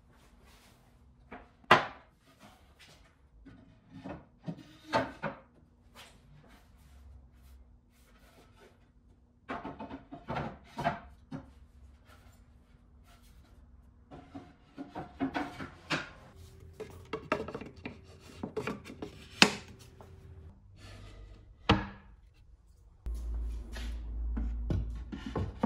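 Solid-wood shelf boards knocking and sliding against the round wooden dowel rungs of a bookshelf as they are set in place by hand. Irregular sharp wooden clacks and thunks come in clusters, with rubbing and scraping between them. The loudest knocks come about 2 s in, near the middle and about three-quarters through.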